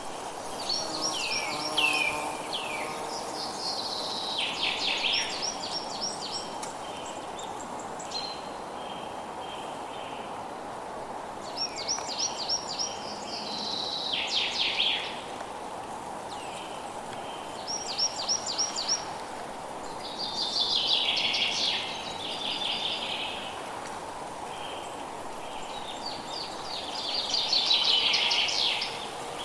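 Forest ambience: a songbird sings a phrase of quick, downward-sweeping notes every few seconds, over a steady background hiss.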